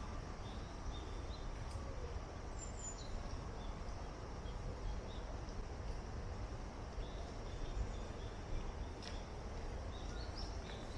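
Outdoor garden ambience: short, high bird chirps repeat over a steady low rumble, with a few faint clicks near the end.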